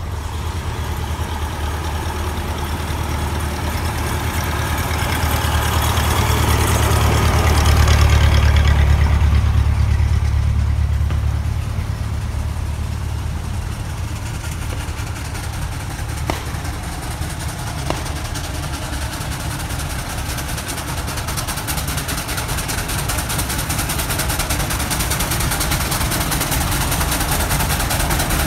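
Heavy vehicle engines running on a road: a low rumble swells to its loudest about eight seconds in and then fades, and near the end a steam traction engine grows louder as it approaches.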